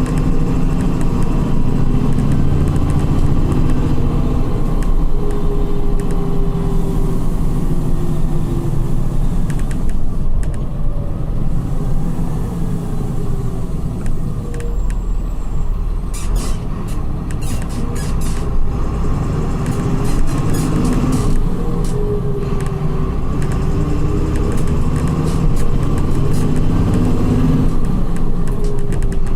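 Volkswagen 17.230 EOD coach's engine and ZF gearbox running under way, the engine note rising and falling several times as it pulls through the gears. A run of sharp clicks comes about halfway through.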